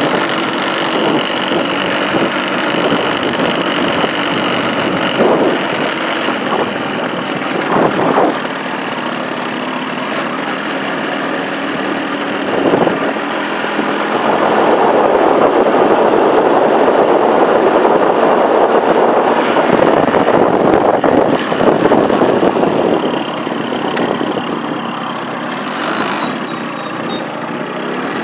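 Vehicle engine running while driving on a gravel road, with rumbling road and tyre noise. The noise grows louder and rougher for about eight seconds while crossing the bridge.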